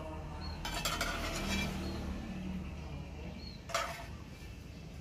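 Metal spoon clinking against a pot and a ceramic bowl as sauce is spooned over cooked prawns, with a few sharp clinks about a second in and one more near the end.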